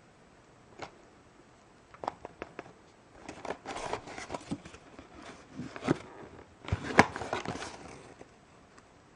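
A small cardboard box with a paper insert and a clear plastic bag being handled: a few sharp clicks about two seconds in, then crinkling and rustling that is loudest about seven seconds in and stops about a second before the end.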